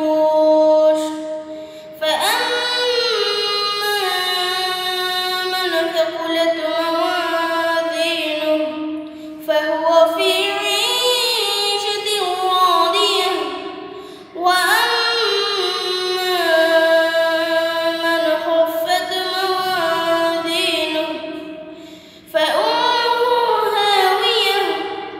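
A boy singing solo and unaccompanied in long, held, gliding phrases with vibrato, pausing briefly for breath between them.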